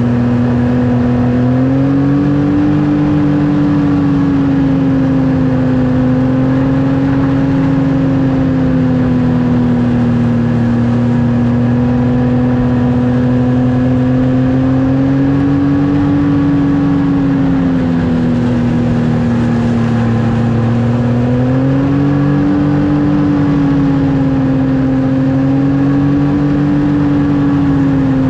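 Snowmobile engine running steadily at cruising speed, its pitch rising a little and easing back about two seconds in and again around twenty-two seconds in.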